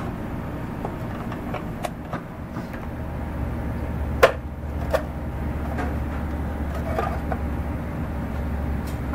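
A screwdriver and a plastic electrical-box cover clicking and knocking as the cover is unscrewed and lifted off a go-kart frame. The sharpest knock comes about four seconds in, over a steady low hum.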